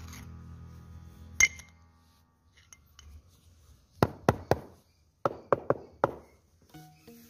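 Rubber mallet tapping a granite strip down into its wet mortar bed: three quick taps about four seconds in, then four more just after five seconds, each with a short ring. A single sharp clink comes about a second and a half in.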